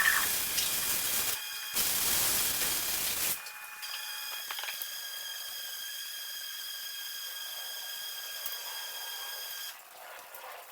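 Loud hissing spray for about three seconds, briefly broken once, then a steady high whine made of several even tones that cuts off near the end.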